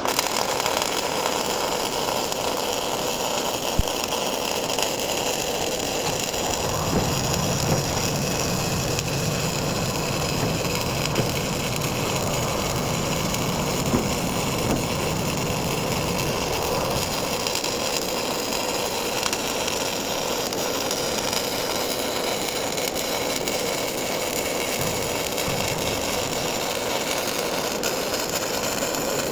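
MIG welding arc burning steadily through a long continuous bead, an even crackling hiss with a few sharp pops.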